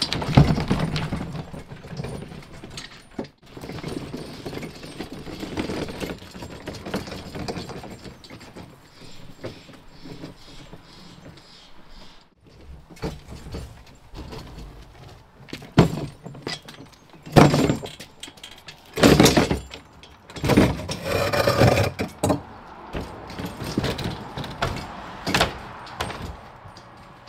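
A loaded wheeled utility cart rattling as it is pulled along, then a series of loud clunks and knocks as tools and gear are handled beside it.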